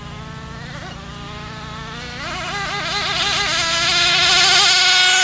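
Gas RC speed boat's two-stroke engine at full throttle on a high-speed straight-line run, a high buzz that rises in pitch and grows louder as the boat approaches. The pitch wavers quickly for a second or two, and the engine is loudest near the end as the boat passes close.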